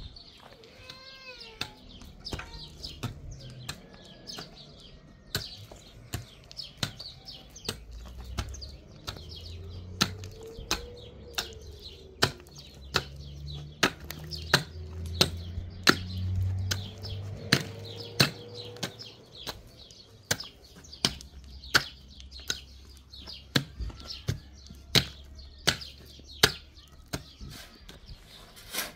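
Irregular series of sharp knocks, about one or two a second.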